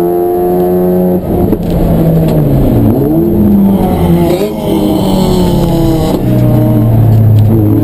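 Race car engine running hard and continuously. The revs hold steady, dip briefly a little after a second in, fall and climb again through the middle, then hold steady near the end.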